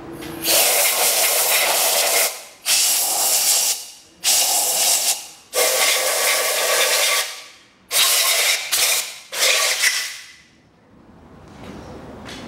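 Compressed-air blow gun blowing out the open cylinder bores of a bare engine block, in about seven hissing blasts of one to two seconds each, the last two shorter.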